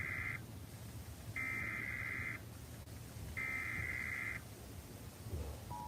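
Emergency Alert System SAME header data bursts for a severe thunderstorm warning: the end of one burst, then two more identical buzzy digital screeches, each about a second long with a second's gap between. Near the end the steady two-tone EAS attention signal begins.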